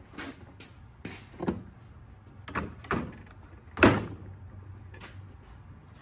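Hard plastic knocks and clunks, one after another, as a replacement motor and gearbox is pushed and seated into a Power Wheels ride-on toy's plastic gearbox housing, a tight fit; the loudest clunk comes just before four seconds in.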